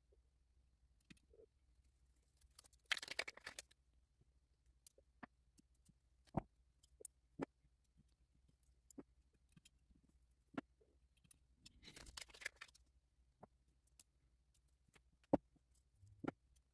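Faint scattered clicks and taps, with two brief rustles about three and twelve seconds in, from fingers handling resistors and a small circuit board as the resistor leads are bent and pushed into place.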